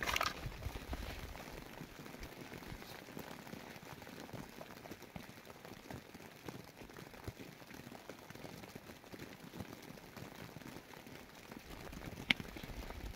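Steady patter of rain falling on the ground and a plastic tarp, with one sharp click near the end.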